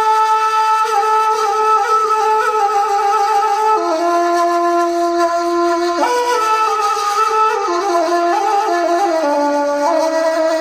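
Background music: a slow melody on a woodwind instrument, with long held notes that move in steps.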